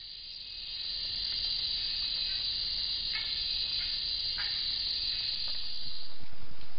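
Steady high-pitched drone of a rainforest insect chorus, swelling over the first second or so and then holding steady. A couple of brief downward chirps cut through it about halfway through.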